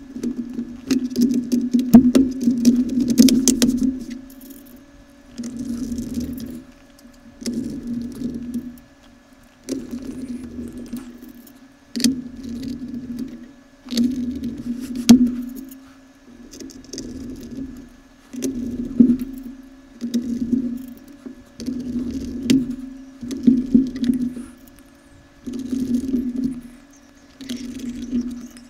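Plastic bottom cover of an Acer Aspire F15 laptop being fitted and pressed down by hand: about fifteen short scraping, creaking bursts of hands working over the plastic, with a few sharp clicks as its clips snap into place.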